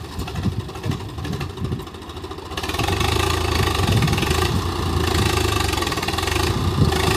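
Diesel tractor engine running, getting louder and harder about two and a half seconds in and staying up.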